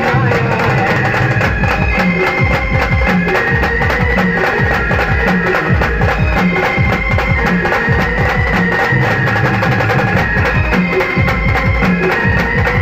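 Instrumental passage of band music: a steady, regular drum beat under a held melody line, with no singing.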